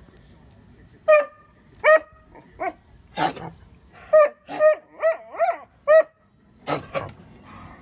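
A dog giving a run of about ten short, high-pitched barks and yips, unevenly spaced, starting about a second in; a couple in the middle waver up and down like a whining yelp.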